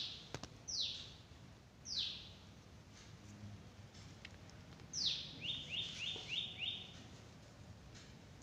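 A bird chirping: a few single falling chirps about a second apart, then a longer falling call followed by a quick run of five short notes.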